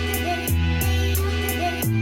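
Background music: a pop instrumental with a strong bass line, held chords and a steady beat of about three hi-hat strokes a second.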